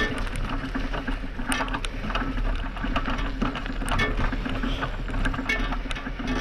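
A horse galloping on a grass trail, its hoofbeats coming as a run of sharp thuds, with wind rumbling on the microphone.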